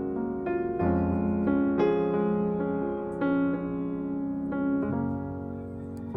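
Background music: slow, gentle piano (electric piano or keyboard) playing notes and chords.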